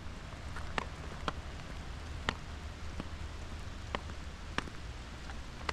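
Steady hiss of cold rain mixed with sleet, with half a dozen sharp, irregular ticks of drops striking close by.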